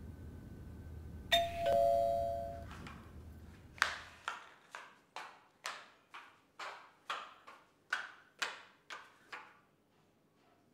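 A two-tone doorbell chime rings once, a higher note then a lower one ringing on for about a second. A couple of seconds later come the quick, evenly spaced clicks of high heels striding across a hard tiled floor, about two steps a second for some six seconds.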